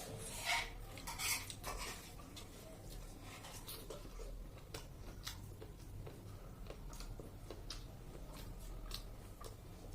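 Eating at a plate: cutlery or fingers clinking against the dish, with two louder clatters about half a second and a second and a half in, then scattered small clicks.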